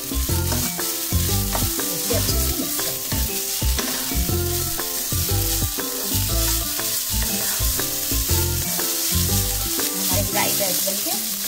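Vegetable fried rice sizzling in a non-stick kadhai while a wooden spatula stirs and tosses it, with many short scrapes of the spatula against the pan. Instrumental background music plays underneath.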